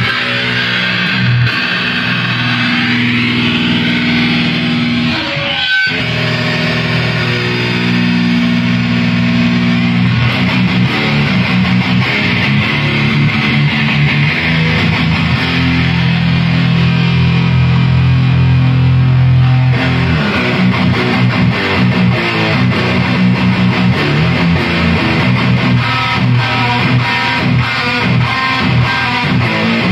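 Electric guitar played loud through an Ampeg V4B reissue valve head and speaker cabinets, trying out a tone: long held, ringing chords with a short break about six seconds in, then quicker picked notes from about two-thirds of the way through.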